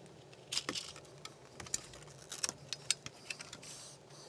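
Scattered light taps and clicks of a thin PEI plastic sheet being handled and set against a steel straight edge on a cutting mat, with a brief soft rustle near the end.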